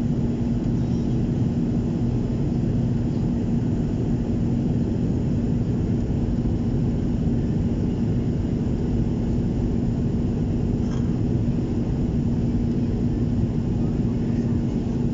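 Jet airliner cabin noise in flight, heard from a window seat: a steady low rushing sound from the turbofan engines and airflow, with a constant hum.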